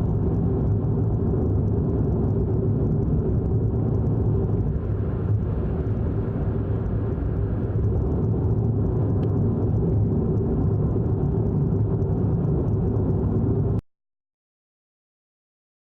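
Steady low rumble and whir of a car on the move, from its engine and road noise; it cuts off abruptly near the end.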